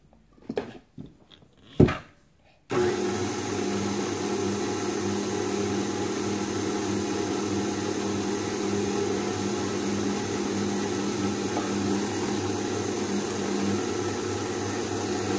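A few small knocks, then a KitchenAid Artisan tilt-head stand mixer switches on suddenly nearly three seconds in and runs steadily at a low speed, its flat beater turning cookie dough in a stainless steel bowl.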